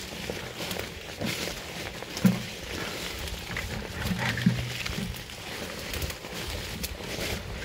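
Walking through dense forest undergrowth: leaves and stems brushing and rustling against legs and the phone, with footsteps on the forest floor. A few short low grunts stand out, the loudest about two seconds in and again around four and a half seconds in.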